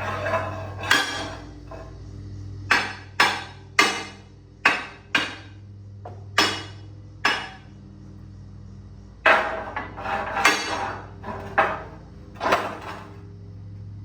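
A hammer striking steel plate, about fifteen loud ringing blows at an uneven pace with short pauses between them. A steady low hum runs underneath.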